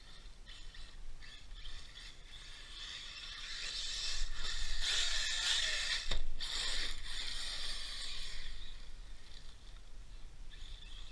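Brushless motor and gear drivetrain of an ARRMA Typhon 6S BLX RC truck whining as it drives over gravel, getting louder from about four to eight seconds in, with a single sharp knock about six seconds in.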